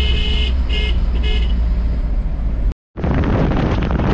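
Truck horn heard from inside the cab over the low drone of the running engine: a held blast that stops about half a second in, then two short toots. After a sudden break the sound changes to a steady rush of wind and road noise from outside the moving truck.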